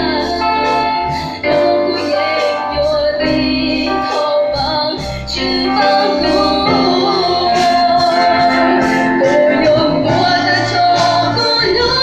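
Worship song played from a backing track with a steady beat and keyboard, with a young woman singing over it through a microphone and loudspeakers.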